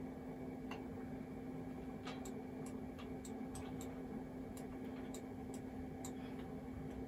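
Computer mouse clicking, about a dozen short sharp clicks at an uneven pace, over a steady low hum.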